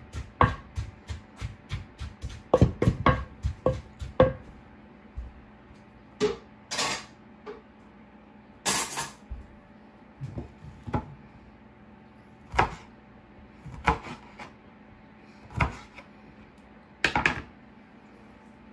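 Pestle pounding in a large wooden mortar: a fast run of sharp knocks, three or four a second, for about the first four seconds, then single knocks every second or two.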